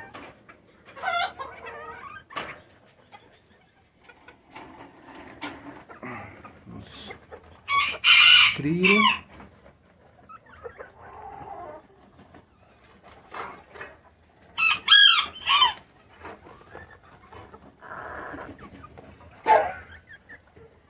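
Miniature bantam roosters crowing in their pens, two loud crows about eight and fifteen seconds in, with hens clucking between them. A few sharp metallic clicks near the start as a wire cage latch is handled.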